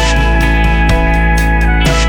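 Background music: guitar-led instrumental track with steady held chords that change about twice in two seconds.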